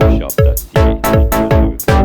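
Electronic background music with a steady, punchy kick-drum beat, about two to three beats a second, over sustained synthesizer notes.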